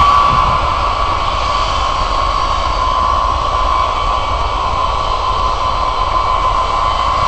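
Jet engines of a USAF B-52 bomber taxiing and turning on the runway: a steady high whine over a jet rush and low rumble, holding at taxi power.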